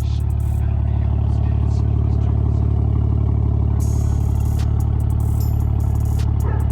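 BMW E90 328i's inline-six exhaust idling steadily on a cold engine, a loud, even low note with a rapid regular pulse.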